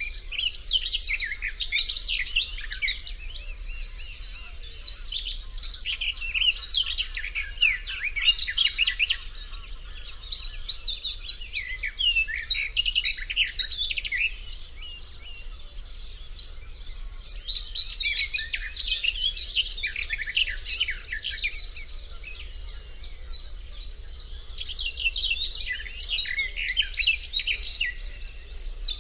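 Reed-bed Acrocephalus warbler singing a long, fast, chattering song of varied scratchy notes mixed with runs of repeated clear notes, broken by short pauses about ten seconds in and again a little after twenty seconds.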